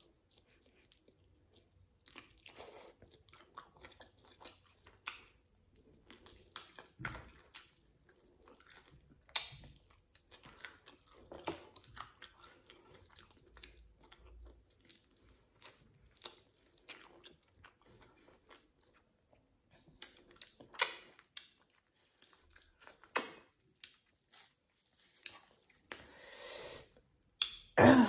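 Close-up chewing and mouth sounds of a person eating grilled chicken off the bone with the fingers: irregular wet smacks, crunches and bites. Near the end comes a short rustle and a louder single knock.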